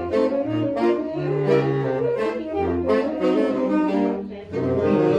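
Saxophone quartet playing, several saxophone parts sounding together in moving chords. The sound drops briefly a little past four seconds in, then comes back loud.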